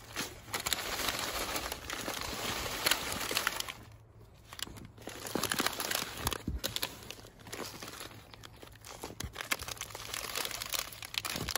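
Handfuls of loose peat-moss-and-compost seed-starting mix being scooped, dropped and pressed into a plastic seedling cell tray in a plastic tub: an uneven crumbly rustling with scattered small crunches and taps. There is a brief lull about four seconds in.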